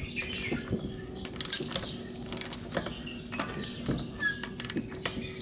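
Irregular metallic clicks and clinks of a socket and long bar working a loosened 32 mm front axle hub nut on a car wheel.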